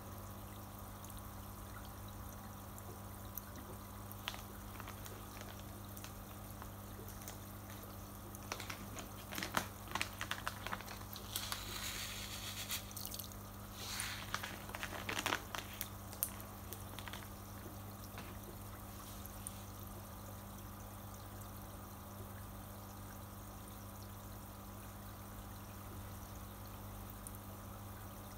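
Aquarium filter running, with water trickling back into the fish tank over a steady low hum. In the middle stretch, a run of light clicks and rattles as fish-food pellets are shaken out and scattered onto the water.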